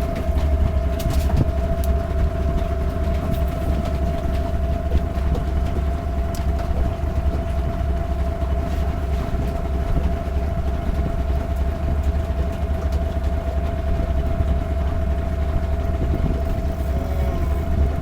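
A boat's outboard engine running steadily at low revs, a constant drone with a low rumble and a single steady hum.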